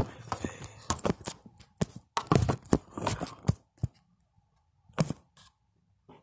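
Handling noise from a phone held and moved right at its microphone: a run of clicks, knocks and rustles. About two-thirds of the way through it goes almost dead silent, broken by one more click.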